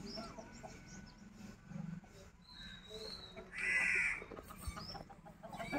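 A crow caws once, a short harsh call about three and a half seconds in, with a thin high bird whistle shortly before it.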